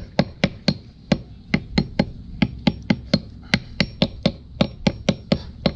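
Hammer striking a lead sinker on a wooden block, crimping it shut around a fishing net's lead line: quick light blows, about four a second, in short runs with brief pauses.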